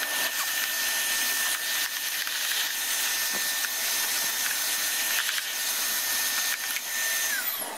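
Vacuum cleaner running with a hose and brush nozzle, sucking debris out of a robot vacuum's dirt bin compartment: a steady rush of air under a high motor whine. Near the end it is switched off and the whine falls away as the motor winds down.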